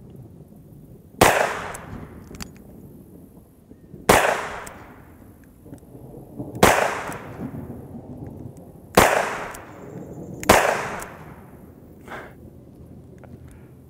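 EAA Windicator revolver firing .357 Magnum rounds: five shots about two to three seconds apart, each dying away in a short echo.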